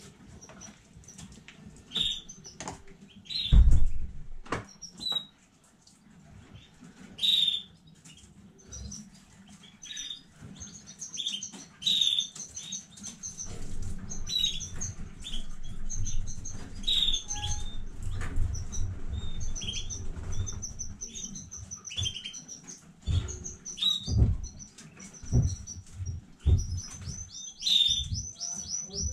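Domestic canaries calling with short, repeated, downward-sliding chirps and strings of high notes, ending in a fast high trill near the end. Scattered knocks come through, the loudest a thump a few seconds in, with a low rumble in the middle stretch.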